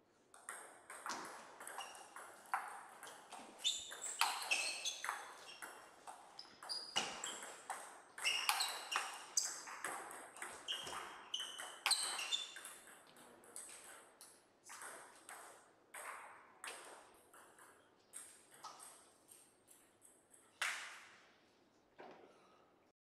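A plastic table tennis ball being struck back and forth with rubber-faced bats and bouncing on the table in a rally: a quick run of sharp clicks for the first dozen seconds, then sparser, scattered clicks.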